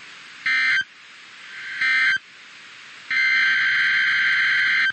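Emergency Alert System SAME data bursts on a weather radio broadcast: three harsh, buzzy digital warbles about a second apart, the first two short and the third nearly two seconds long, over steady radio hiss. They are the coded bursts that frame an emergency alert message.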